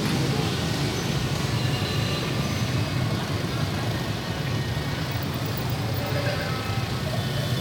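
Steady din of many motorbike engines running in a dense street procession of celebrating riders, with faint higher tones scattered through it.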